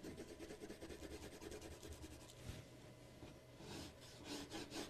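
Coloured pencil shading quickly back and forth on paper: a faint, rhythmic scratching of rapid strokes, growing louder near the end.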